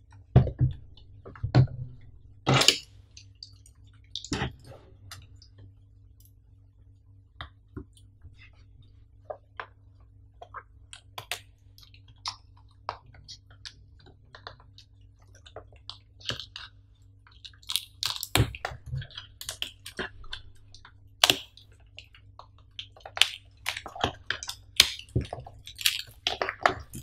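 Plastic shrink wrap on a cardboard box being slit with a utility knife and peeled off: scattered crinkles, scrapes and small taps. A few louder knocks in the first five seconds as the box is turned over on the table, and denser crinkling in the last ten seconds as the wrap is torn away.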